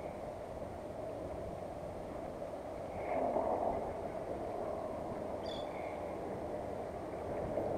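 Steady hum of road traffic crossing the concrete causeway bridge, with one vehicle passing louder about three seconds in.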